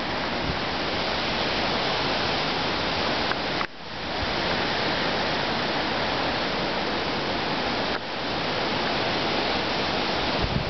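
Hurricane Irene's wind and rain: a steady rushing hiss with no pitch, dipping sharply for a moment about a third of the way in and again near the end.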